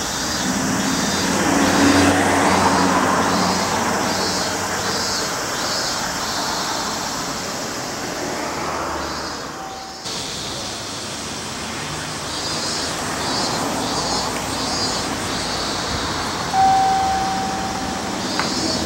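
A motor vehicle passes on the road, its engine swelling and fading over the first few seconds, under a steady rhythmic high chirping of about two pulses a second. Near the end a single steady beep sounds for about a second and a half.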